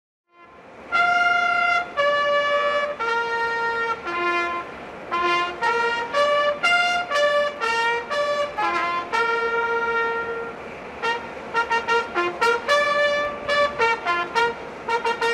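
Fanfare trumpets playing a ceremonial fanfare. They start about half a second in with long held notes, then play quicker, short repeated notes in the second half.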